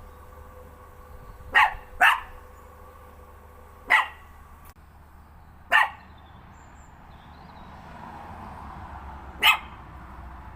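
Dog barking in single sharp barks: two in quick succession about a second and a half in, then single barks spaced about two seconds apart, and a last one near the end. A faint steady hum sits underneath.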